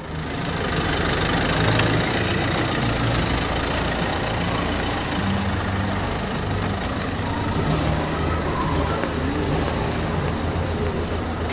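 Motor vehicle engine running at low revs, a steady low rumble whose pitch shifts slightly now and then.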